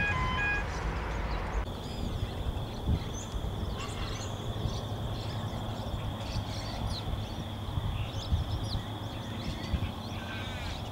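Small birds chirping over a low steady rumble and a steady high tone. A pulsing electronic multi-tone signal cuts off in the first second, and a few crow-like caws come right at the end.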